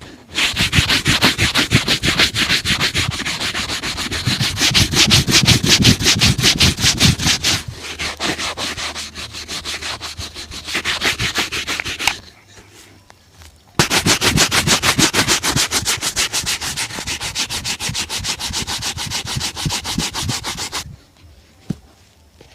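Rapid back-and-forth buffing of a leather shoe during a shoe shine, several brisk strokes a second. It comes in two long bouts with a short pause between them.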